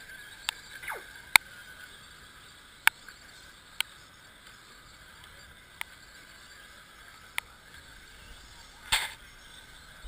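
Electric RC short-course trucks racing on a dirt track: a faint steady motor whine, with one whine falling in pitch about a second in. About six sharp clicks and knocks are scattered through, and a brief noisy burst comes near the end.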